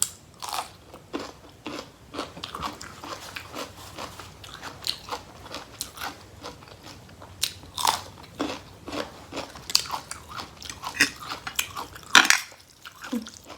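Close-up eating of rice noodles with curry and fresh vegetables: wet chewing and crunching with many small clicks. A loud clink near the end is a fork striking a bowl with a rough, ridged bottom.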